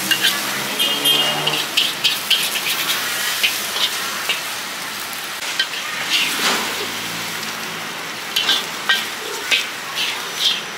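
Pad Thai noodles sizzling as they stir-fry in a wok, with a steady hiss and frequent sharp clanks and scrapes of the utensil stirring and tossing them.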